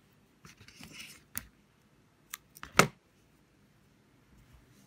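Scissors cutting crochet yarn: a soft rustle of yarn, then a few sharp clicks, with the loudest snip about three seconds in.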